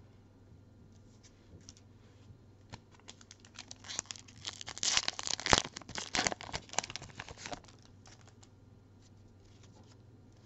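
Foil wrapper of a Pokémon card booster pack crinkling and tearing as it is pulled open by hand. The crackling picks up about three seconds in, is loudest in the middle, and stops a couple of seconds before the end.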